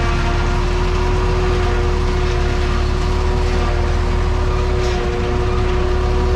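Tatra 148 truck's air-cooled V8 diesel running steadily, a constant whine over a deep rumble, with a slight dip in level about five seconds in.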